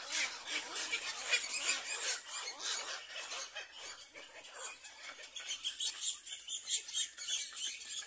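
Black-crowned night heron chicks begging in the nest: a rapid, high-pitched chatter of clicks and squeaky calls that swells and fades.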